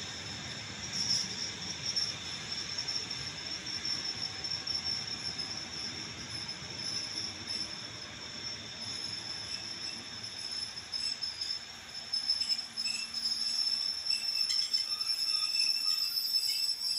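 Passenger coaches rolling slowly past as the train brakes to arrive, with steady rumble on the rails and a continuous high-pitched squeal from the braking wheels. More short squeals join in over the last few seconds.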